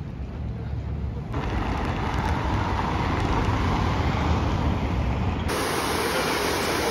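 City street traffic: a steady hum of cars and taxis. About five and a half seconds in it cuts abruptly to the steady rush of the Trevi Fountain's falling water.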